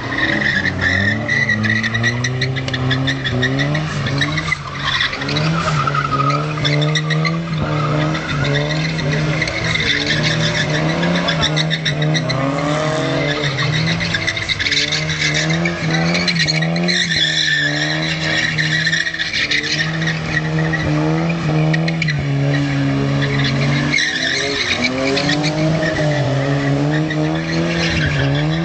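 A car engine revving hard and varying in pitch as the car is driven fast, with tyres squealing through much of it.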